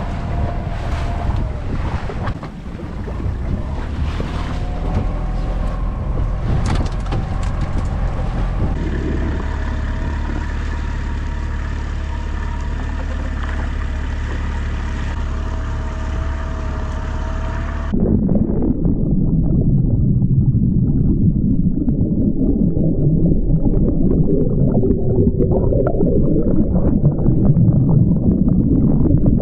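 Motorboat engine running steadily under way, with wind on the microphone and water rushing along the hull. About eighteen seconds in the sound turns dull and muffled, heard underwater: rushing water and bubbles.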